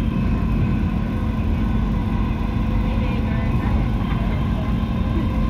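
Dubai Metro train running on its elevated track, heard from inside the carriage: a steady low rumble with a constant hum.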